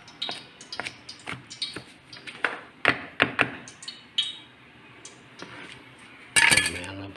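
Cleaver-style kitchen knife chopping garlic on a cutting board: a quick, uneven run of sharp knocks of the blade on the board for about four seconds, then a few scattered taps. A short, louder scraping noise comes near the end.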